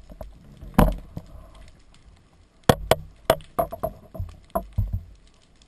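Sharp knocks and clicks heard underwater as a speargun and its spear shaft are handled: one strong knock about a second in, then a quick irregular run of about ten clicks and knocks a couple of seconds later, over a low water rumble.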